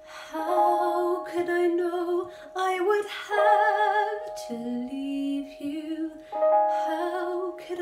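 A woman singing a slow musical-theatre ballad with vibrato, over a held piano accompaniment.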